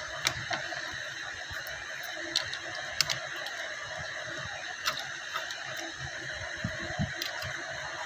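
A few sharp small clicks and taps, spread a second or two apart, from handling a disassembled Nokia 105 phone's plastic housing, screen and circuit board and touching tweezers to it, over a steady background hiss.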